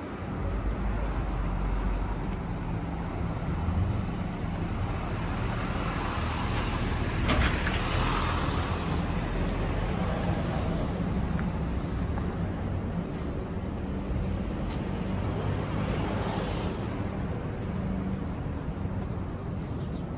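City street traffic: a steady low rumble of vehicles, with louder swells of passing traffic about seven seconds in and again around sixteen seconds.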